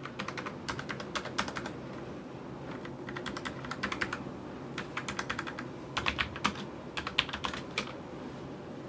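Typing on a Logitech MX Mechanical Mini mechanical keyboard: irregular runs of crisp key clicks, some in quick bursts of several keystrokes, with short pauses between.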